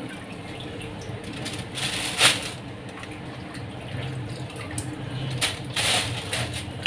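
Thin plastic shopping bags crinkling and rustling in hands at a kitchen sink, with louder rustles about two seconds in and again near the end, over water running from the tap.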